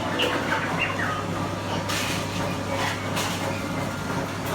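Restaurant room din with a steady low hum, a few short chirps in the first second, and several brief hissing bursts about two and three seconds in.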